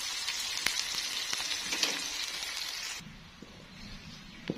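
Bird's eye chilies, red chilies, garlic and shallots sizzling in hot oil in a wok, stirred with a metal spatula that clicks against the pan. The sizzle cuts off about three seconds in, and a single sharp knock comes near the end.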